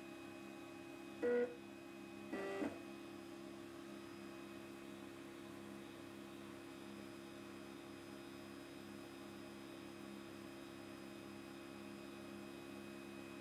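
Steady hum of an air-assisted ink-jet line dispenser, broken by two short pitched buzzes: a loud one about a second in and a longer, quieter one at about two and a half seconds.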